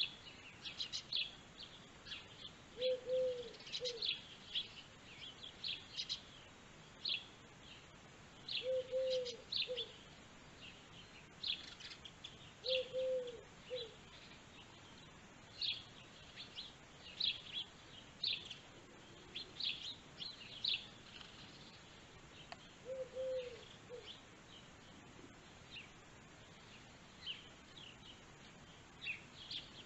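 Small songbirds chirping and twittering in quick high notes throughout, with a lower two-note call four times, about 3, 9, 13 and 23 seconds in.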